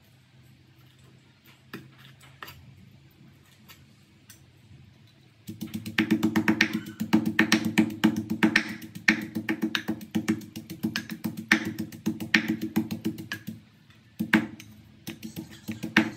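Wooden pestle pounding a moist herb paste in a wooden mortar: a few light taps at first, then, about five seconds in, rapid steady pounding with a hollow wooden ring, which stops briefly near the end and starts again.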